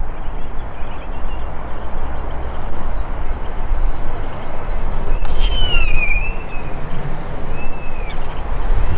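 Boeing 787-8's jet engines at takeoff thrust on the takeoff roll, a steady distant rumble. Birds chirp a few times around the middle.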